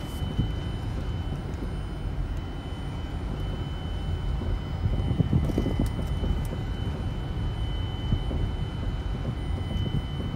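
In-cabin running noise of a 2010 Mazda 3 driven at low speed: a steady low rumble of engine and tyres with a few brief bumps. A faint steady high-pitched tone runs under it.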